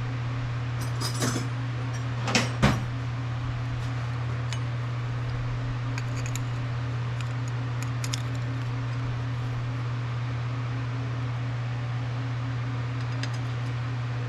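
A steady low hum, with a few metallic clinks and clatters about one and two and a half seconds in as hard-drive platters are handled.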